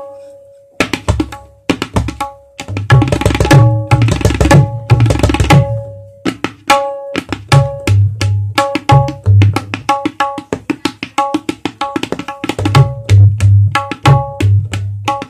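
Tabla pair played with both hands: ringing strokes on the small right-hand drum (dayan) sounding its tuned note, mixed with deep bass strokes on the larger left-hand drum (bayan). It starts after a brief pause under a second in and runs as a fast continuous rhythm, with a dense run of very quick strokes between about 3 and 5 seconds in.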